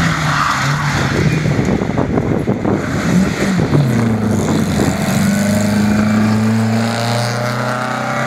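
Rally car going past at speed on a gravel stage, its engine revving up and down. Tyres and gravel crackle loudest as it goes by, then the engine note steadies as it drives away.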